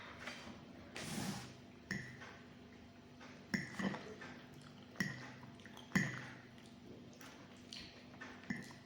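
Cutlery clinking against dishware about six times while eating, each clink ringing briefly, with a short rustle about a second in.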